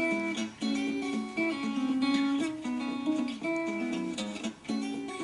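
Background music: acoustic guitar playing a light, steady run of plucked notes.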